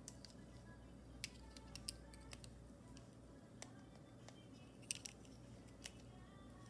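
Light, irregular clicks of plastic pens knocking together as they are handled, about eight sharp ticks, the sharpest about five seconds in. Faint pop music plays underneath.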